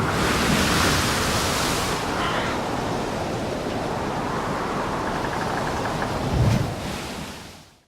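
Ship in a heavy sea: a steady rush of wind and breaking waves, with a brighter hiss of wash in the first two seconds and a deep thud about six and a half seconds in. It fades out at the end.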